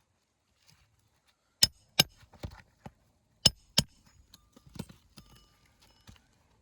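Hammer blows driving roofing nails under asphalt shingles with a snake bar: two pairs of loud, sharp strikes, with lighter taps between and after.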